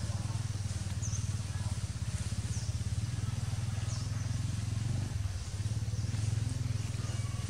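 A small engine running steadily with a low, pulsing rumble, easing briefly about five seconds in, with a few faint, short high chirps over it.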